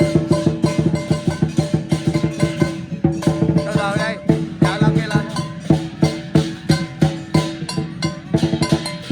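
Vietnamese lion dance percussion: a drum beaten in fast, dense strokes, with ringing cymbals and gong keeping time.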